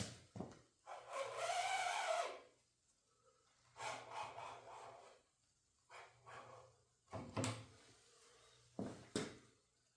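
Utility knife with a carbide blade scoring 1/8-inch plexiglass along a straight edge: about five scraping strokes, a long one first and then shorter ones, with a couple of sharper clicks near the end.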